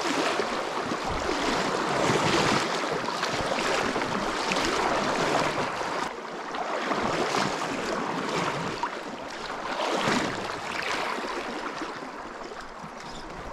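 Shallow clear river running over a gravel riffle close to the microphone: a steady rush of water with small splashes and gurgles, growing quieter near the end.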